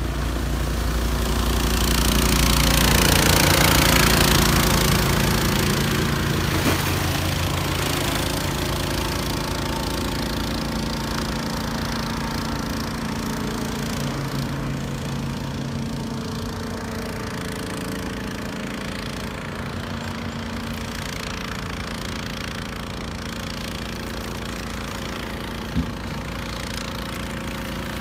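Petrol engine of an SC390 short-tail boat drive running at speed. It is loudest, with the rush of spray, as the boat passes close by about three to four seconds in, then fades steadily as the boat moves off across the water. A single sharp click comes near the end.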